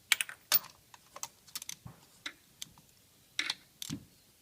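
Irregular sharp clicks and taps of a ratchet, extension and spark plug socket working down in the spark plug well of the VW 1.8T engine, with the socket not yet gripping the plug to pull it out. The loudest two come right at the start.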